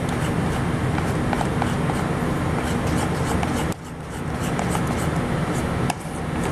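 Batter being stirred in a stainless steel mixing bowl, with light clicks of the utensil against the bowl over a steady low hum. The hum drops away suddenly about halfway through and again near the end, each time coming back.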